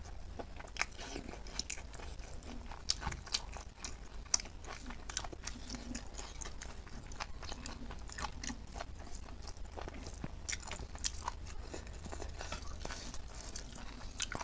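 Close-miked chewing and biting of cooked pork leg: many irregular sharp smacks and clicks, over a steady low hum.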